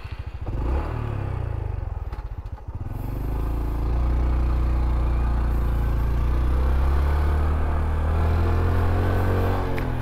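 Honda Trail CT125's single-cylinder engine pulling away, its pitch rising and dropping through the first gear changes, then running steadily from about four seconds in.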